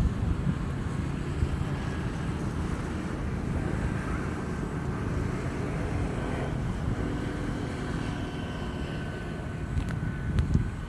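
Wind buffeting the microphone over a steady low rumble, with faint thin high tones and a few sharp clicks near the end.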